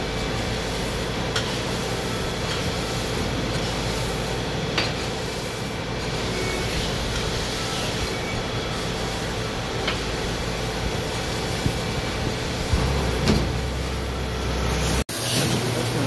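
Mori Seiki NH6300DCG II horizontal machining center running through tool changes with its chain tool magazine: a steady mechanical hum with a few faint clicks and knocks. The sound breaks off for an instant near the end.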